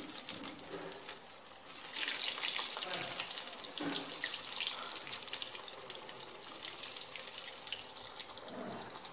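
Breaded chicken cutlets deep-frying in hot oil: a steady crackling sizzle that gets louder about two seconds in.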